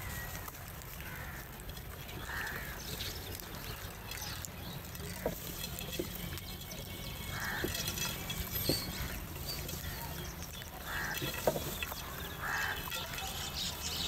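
House crows giving a few short, separate caws while they feed, with sharp taps of beaks pecking at food in clay bowls.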